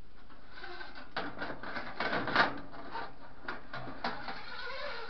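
Irregular scraping, rubbing and clicking from a flexible claw pickup tool's metal shaft and claws working against the dryer's lint-screen slot and the lint in it. The loudest click comes about two and a half seconds in.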